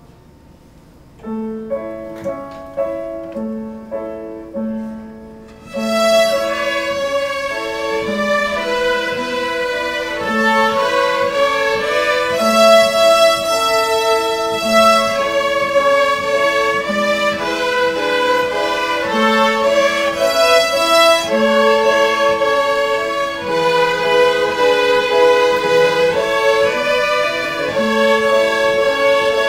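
A group of young children's violins playing a tune together in unison, accompanied by piano. The piano plays a short introduction starting about a second in, and the violins join about six seconds in.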